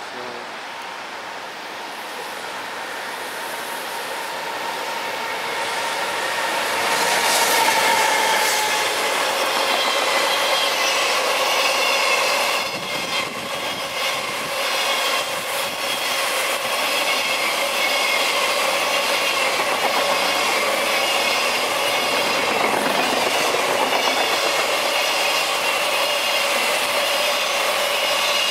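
An EF210 electric locomotive hauling a long container freight train approaches and passes at speed. It grows louder over the first seven seconds, then the container wagons roll by in a steady, loud clatter of wheels on rail.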